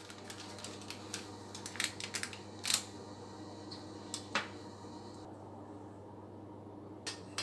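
Light scattered clicks and taps of hands handling baked cookies on parchment paper, about half a dozen, the sharpest a little under three seconds in, over a low steady hum.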